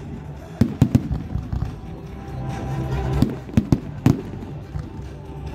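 Aerial fireworks bursting: a cluster of sharp bangs and cracks about half a second to one second in, then another from about three to four seconds in.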